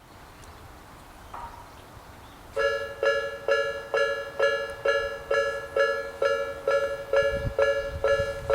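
Japanese railway level-crossing alarm of the Tobu Nikko Line type starting about two and a half seconds in: a repeated two-note electronic chime, a little over twice a second, warning that a train is approaching.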